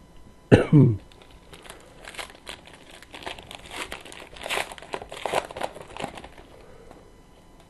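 Crinkling and rustling of a trading-card pack's foil wrapper as it is torn open and handled, a dense run of crackles lasting about five seconds.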